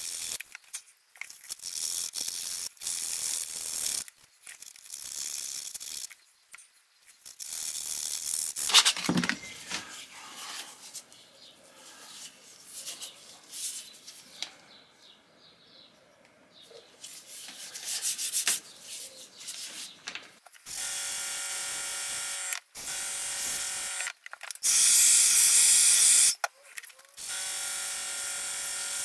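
Sandpaper rubbed in quick strokes over a carved wooden lure body, with a sharp knock partway through. Later a compressed-air paint sprayer hisses in steady bursts of a few seconds each, with a steady whine under the hiss; the loudest burst comes near the end.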